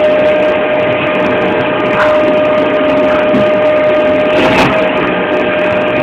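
Canister vacuum cleaner running with a steady hum and whine. A couple of brief, sharper sounds break over it about two and four and a half seconds in.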